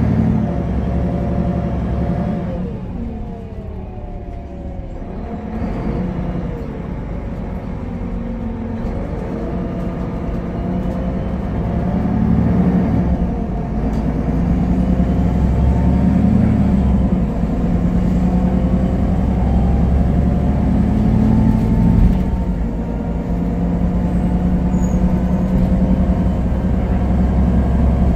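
Solaris Urbino 18 III articulated bus's DAF PR228 diesel engine and Voith automatic gearbox, heard from inside the passenger cabin: the engine note falls in pitch a few seconds in, then rises steadily as the bus gathers speed.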